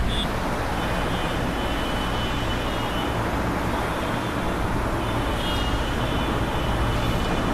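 Steady low rumbling background noise with a hiss over it and no distinct events.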